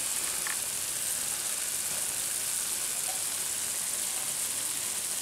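Steady high sizzling hiss of food frying in a pan on the hob.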